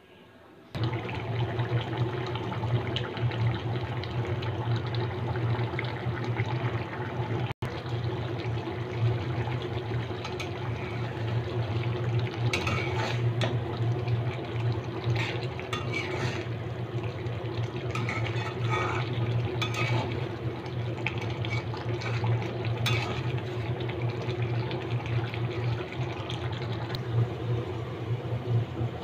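Curry bubbling in a metal wok over a gas burner, over a steady low hum, starting about a second in. Through the middle a metal spatula stirs the curry and scrapes and clicks against the pan.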